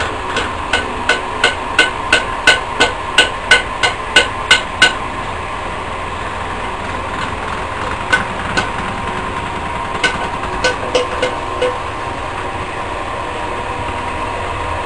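A quick run of sharp taps with a short ring, like hammer blows, about three a second for some five seconds. A few scattered taps come later, over a steady background hum.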